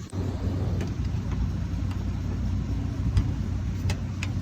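Steady low machine hum with a few short, sharp metallic clicks and taps, two of them close together near the end, as the access panel of a packaged HVAC unit is unfastened and opened.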